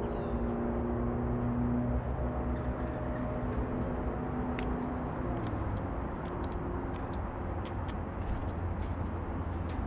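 Steady low rumble of a motor vehicle engine with a droning hum that fades out after a few seconds, and a scatter of small sharp clicks in the second half.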